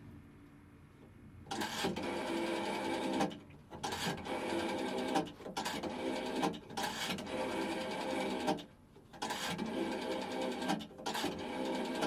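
Rotary dial of an old payphone being dialled: a run of whirring, clicking stretches, each one to two seconds long with short pauses between them, as the dial is wound and spins back for each digit. The first one starts about a second and a half in.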